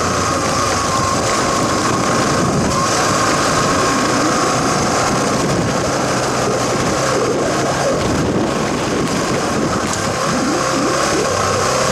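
Motorcycle engine running at low road speed on a dirt track, its note rising and falling with the throttle over a steady rushing noise.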